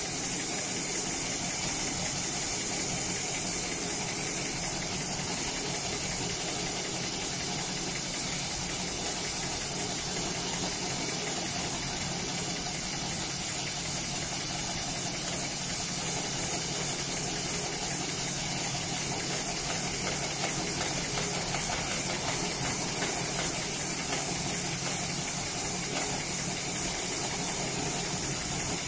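Hightex automated rope sewing machine running steadily while bar-tacking a braided rope: a continuous machine noise with a hiss over it.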